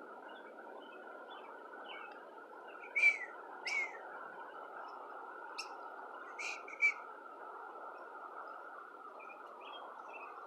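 Birds calling with short, sharp chirps, several loud ones clustered about three to seven seconds in, over a steady hiss of wind and rain.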